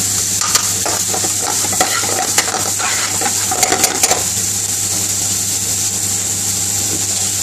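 Chopped onion and peppers sizzling in hot oil in a metal frying pan. A metal spoon scrapes and clinks against the pan as they are stirred, stopping about four seconds in, after which only the steady sizzle goes on.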